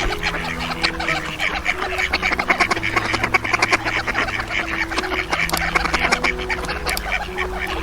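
A flock of ducks quacking, many rapid overlapping calls without a break, over soft background music with long held notes.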